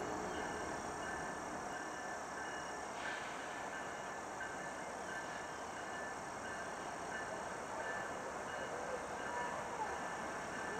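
Grade-crossing warning bell ringing steadily and evenly over a low steady background. A short wavering call is heard near the end.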